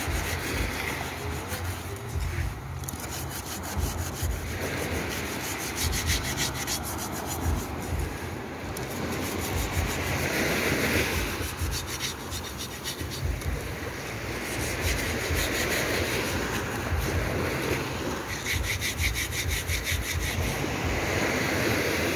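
A metal cooking pot scoured by hand with wet beach sand: continuous gritty rubbing in quick back-and-forth strokes.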